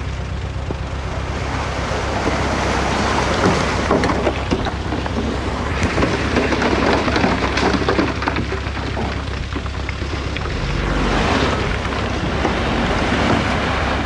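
Komatsu D20 crawler bulldozer's diesel engine running, a steady low drone under a rushing noise with scattered knocks.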